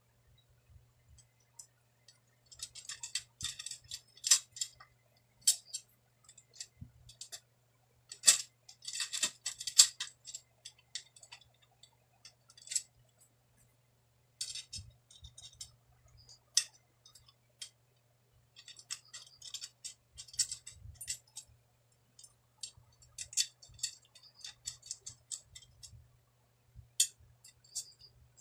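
Steel spokes clinking and ticking against each other, the hub and the rim as a motorcycle wheel is laced by hand, in irregular bursts of light metallic jingling.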